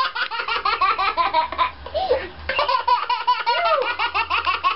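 A toddler laughing hard in rapid, continuous belly-laugh bursts, easing briefly about two seconds in before picking up again.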